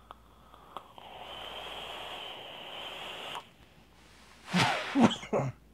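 A long draw on a rebuildable dripping atomizer (Wasp Nano): a steady airy hiss of air pulled through the device for about two and a half seconds. Then three hard coughs in quick succession near the end, from a harsh hit of the heavily cooled vapour.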